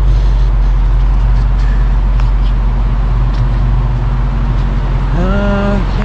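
Idling vehicle engines, a steady low hum. About five seconds in, a pitched tone rises sharply and then holds.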